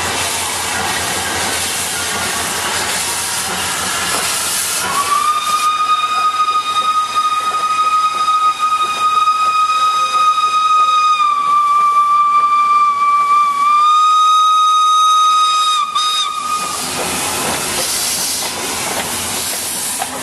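Steam locomotive pulling a train past, with steam hissing, then its whistle sounds one long steady note for about twelve seconds, dipping slightly in pitch partway through, before the hissing and rolling of the train carry on.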